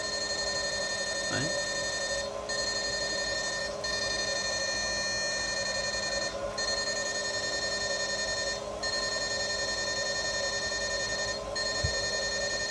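IGBT electronic fish shocker running under load into a halogen tube lamp, giving a steady high electrical whine of several tones over a lower hum. The whine breaks off briefly every one to three seconds as the unit is pulsed ('băm'), charging its high-voltage capacitor and discharging it into the output.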